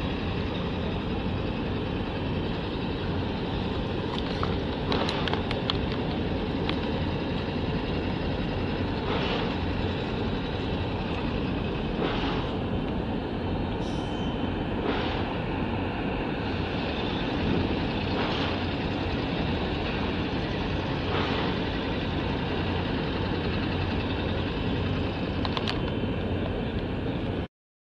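Steady low rumble with a faint hum, broken by brief faint higher sounds every few seconds and a few light clicks; it cuts off suddenly near the end.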